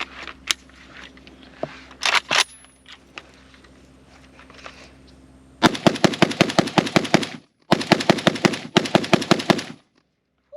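A PSA AK-105 rifle in 5.45x39 firing three rapid strings of shots, about ten a second, with short breaks between them. Faint handling clicks come first, before the shooting starts about halfway in.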